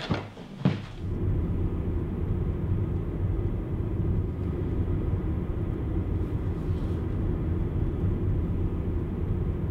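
Steady low engine and road rumble of a moving car, heard from inside the cabin, setting in about a second in.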